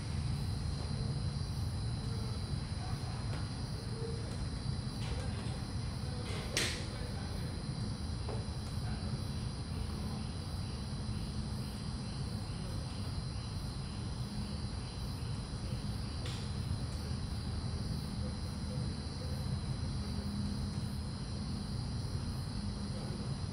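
A steady low hum with a thin, steady high insect trill over it. About six and a half seconds in comes a single sharp crack of a golf club striking a ball, and a fainter click follows around sixteen seconds in.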